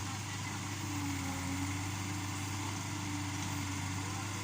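Yanmar B37 mini excavator's diesel engine running at a steady speed, a low drone with a held tone above it.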